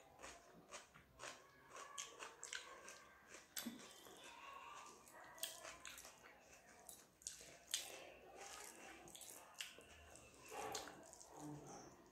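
Faint chewing and mouth clicks of a person eating rice with her hand, with soft irregular smacks and clicks from fingers mixing the food.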